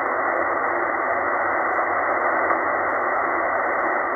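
Steady static hiss from a Tecsun H-501X shortwave receiver tuned to 7268 kHz lower sideband, with no voice coming through. The hiss is dull, with no highs above about 2 kHz.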